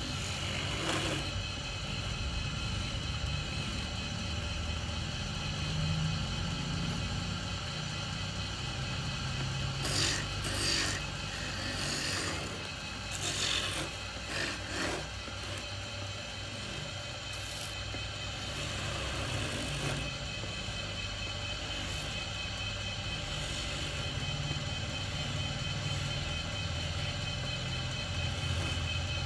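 Wood lathe running steadily while a hand chisel cuts into a spinning wooden blank being shaped into spinning tops. Several short scraping cuts of the tool against the wood stand out partway through.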